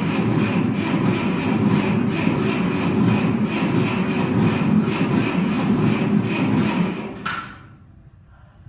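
Ferguson TO-30 tractor engine being cranked over by its starter, a steady churning with a regular beat, without catching. The cranking cuts off sharply about seven seconds in.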